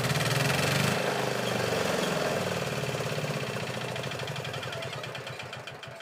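Diesel engine of a portable drum concrete mixer running with an even, rapid firing beat, loudest about a second in and then gradually easing off.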